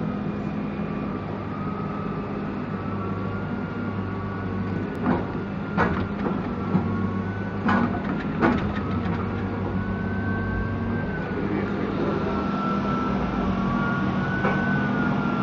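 John Deere log loader running under load, heard from inside its cab: a steady engine drone with a high whine that wavers up and down in pitch as the loader works. Several sharp knocks come between about five and nine seconds in, and one more near the end.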